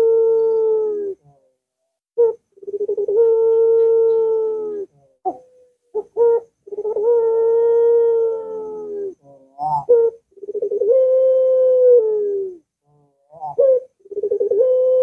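Barbary (ringneck) dove cooing: a string of long drawn-out coos, each opening with a quick rattling stutter and then held on one steady note for two to three seconds, about every four seconds, with short clipped notes in the gaps.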